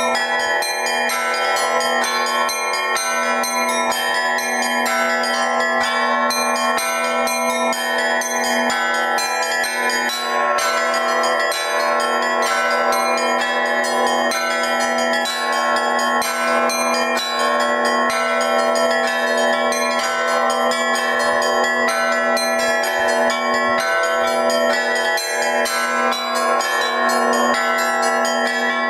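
Russian Orthodox church bells rung in a continuous dense peal. Many bell tones sound at once, with rapid strokes on the smaller bells running over the steady ringing of the larger ones.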